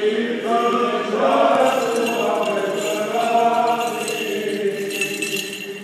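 Eastern Orthodox liturgical chanting: voices singing slow, held notes that ease off after about four seconds. A light, high metallic jingling starts near the end.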